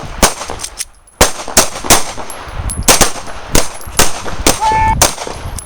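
Handgun shots from several shooters on a firing line: about ten sharp shots at irregular spacing, starting just after a "Fire!" command.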